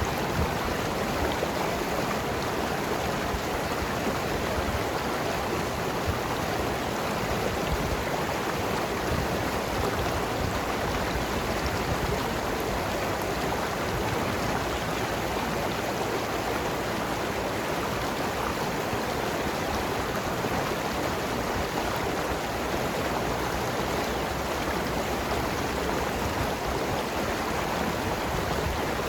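Mountain river rushing and gurgling over rocks, a steady even flow of water.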